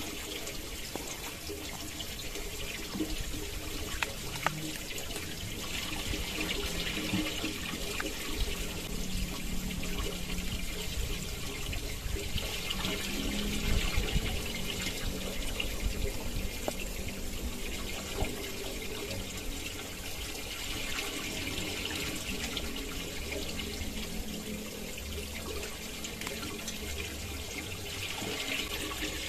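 Steady rush of running stream water that swells and fades, with a few sharp clinks of a spoon and fork against a metal camping pan.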